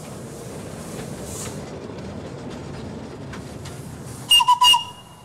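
Small homemade narrow-gauge steam train running along its track with a steady rumble, then its whistle gives three short, loud toots about four seconds in.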